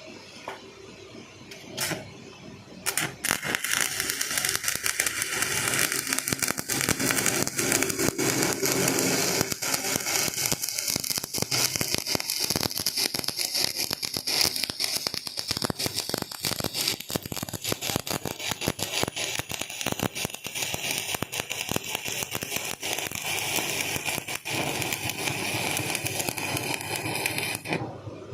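Electric arc welding on a pulley: the arc gives a dense, steady crackle. It starts about three seconds in and cuts off suddenly shortly before the end.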